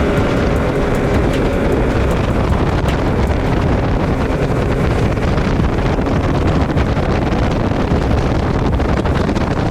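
Wind buffeting the microphone: a loud, steady rumble with no break.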